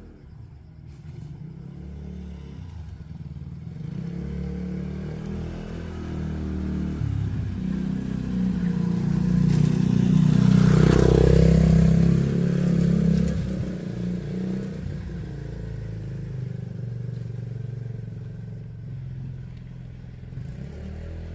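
A motor vehicle's engine passing by, growing louder to a peak about eleven seconds in and then fading.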